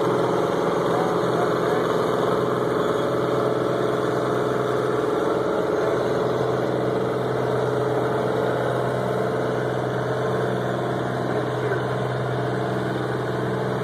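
Modified Oliver 880 diesel tractor engine running steadily at an even pitch, without revving.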